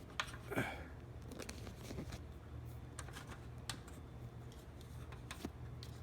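Light scattered clicks and small knocks of a metal ladder hinge being worked by hand onto the ladder's rail, not yet snapped into place.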